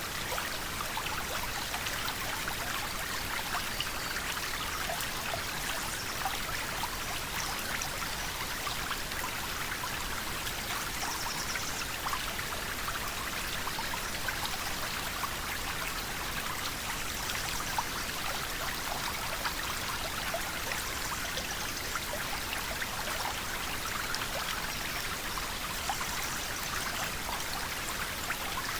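River water flowing in a steady, even rush with fine bubbling and splashing detail.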